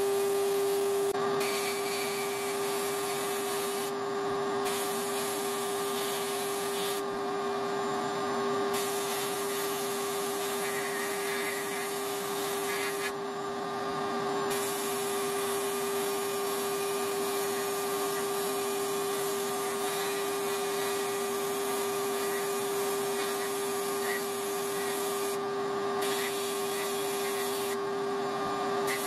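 Sandblast cabinet's blast gun hissing as grit blasts a rusty steel part, the hiss cutting out briefly several times when the trigger is let off, over a steady buzzing hum.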